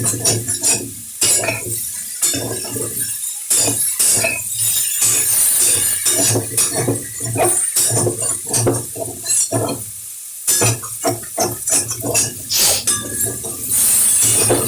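A spoon stirring vegetable curry in a pan, clinking and scraping against the pan many times at an uneven pace, over a steady hiss of the food cooking.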